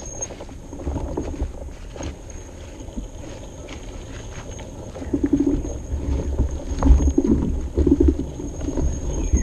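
Ride noise from a bicycle on a trail: low wind rumble on the microphone with scattered knocks and rattles, getting louder and busier from about five seconds in.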